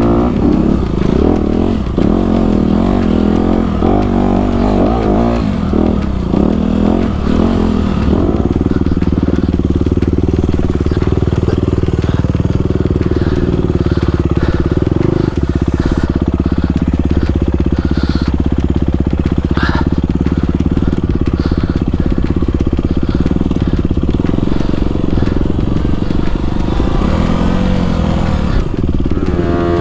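Dirt bike engine, heard from the rider's own bike while riding a trail: the revs rise and fall repeatedly at first, then hold steady for a long stretch, and swing up and down again near the end.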